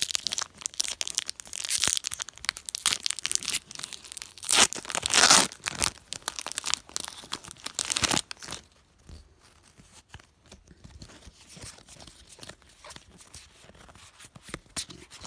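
Foil Pokémon booster pack wrapper being torn open and crinkled, with the loudest long rip about five seconds in. After about eight seconds it drops to faint ticks of the cards being handled and fanned out.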